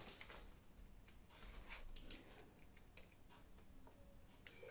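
Faint, scattered rustles and soft clicks of paper being handled: planner pages turned and a banknote slipped into a budget envelope.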